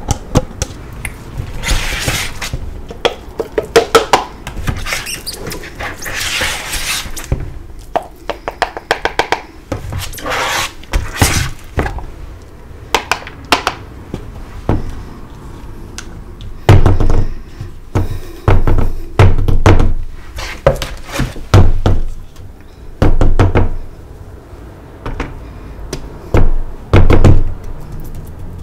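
Plastic cups packed with wet blue gym chalk paste being handled on a plastic tray: crumbly scraping, rustling and clicks, then from about halfway a run of heavy thuds and knocks as the cups are pressed, tapped and set down.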